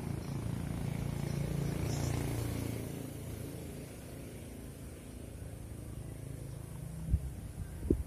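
Low engine rumble of a passing motor vehicle, swelling about two seconds in and then fading away, with a few low thumps of wind buffeting the microphone near the end.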